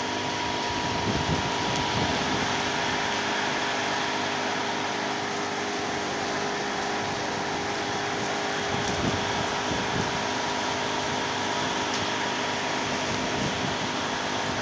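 Heavy rain pouring steadily in strong wind, with gusts rumbling on the microphone and a faint steady hum underneath.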